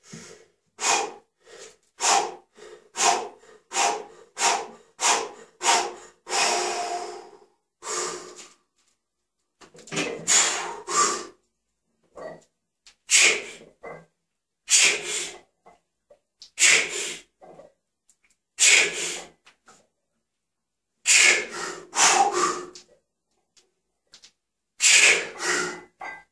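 A lifter's forceful breathing during a heavy bench-press set of 138 kg: a quick run of sharp breaths about two a second for the first six seconds, then a loud hissing breath or pair of breaths about every two seconds, one for each rep.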